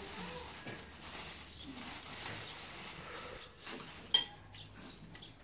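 Metal spoons clinking and scraping against ceramic bowls and plates while eating, with one sharp clink about four seconds in.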